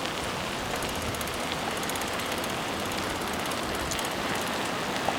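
A car on the move: steady road and engine noise with no change.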